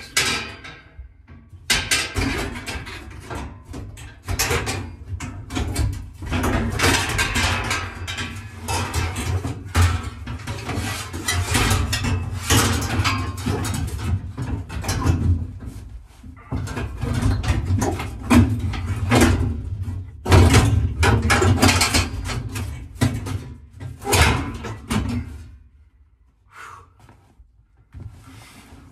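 The 1969 Mustang fastback's sheet-metal rear package tray being shifted and worked into place, clattering and scraping against the car's body and roll bar in an uneven run of knocks. It goes much quieter for the last few seconds.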